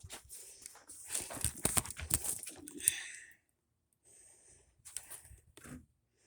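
Rustling and crackling of leafy tree branches being handled, in dense irregular bursts that stop about three seconds in, followed by two fainter short rustles.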